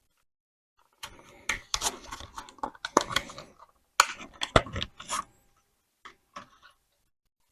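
Hand-handling of a 2.5-inch SSD and its small parts: a run of sharp plastic and metal clicks and taps with rustling, stopping about five seconds in, then a brief few more clicks.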